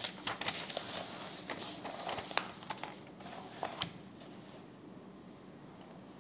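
Sheets of paper rustling and crackling as they are handled and turned over to a fresh page, with several sharp crinkles; the rustling dies away about four seconds in.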